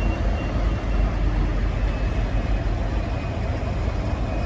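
V/Line N class diesel-electric locomotive idling steadily, a low engine rumble with no horn.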